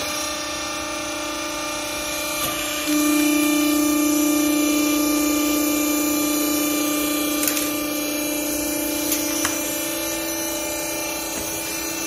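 Hydraulic power unit of a vertical clothes baler running with a steady hum and whine, growing louder about three seconds in as the press plate is raised off the strapped bale. A few faint clicks sound over it later on.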